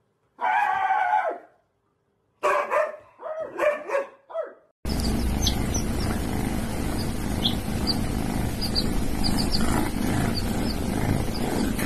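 A husky's pitched howling yowl, one long call and then several shorter ones. After a cut, young chicks peep in short high chirps over a steady hiss.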